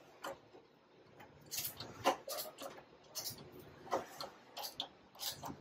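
Hand screwdriver turning a screw in the flip-out door's bracket of a shoe cabinet: a run of irregular light clicks and scrapes, a few per second.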